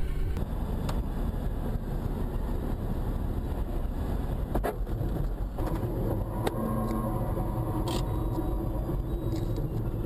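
Steady low rumble of a car driving, recorded by a dashcam inside the cabin, with a few faint clicks. The rumble changes character a little over halfway through.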